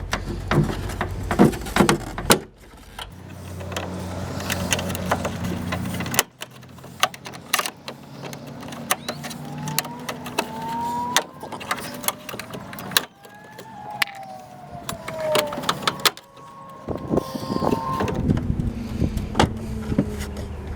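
Plastic push-in clips being pried and worked loose with a trim-panel pry tool: irregular clicks, knocks and scraping, with squeaky tones rising and falling in pitch about halfway through and a steady low hum for a few seconds near the start.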